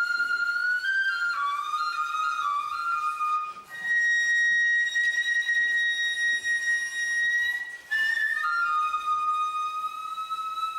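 Solo flute playing a slow melody in a high register: a few short stepped notes, then one long high note held for about four seconds, then a lower note held to the end.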